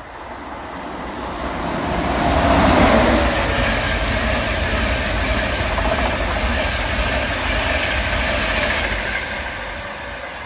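LNER InterCity 225 electric train (Class 91 locomotive with Mark 4 coaches) passing along the platform, its wheels rumbling on the rails. The sound builds as it approaches, is loudest about three seconds in, stays loud while the coaches go by, and fades near the end as the train draws away.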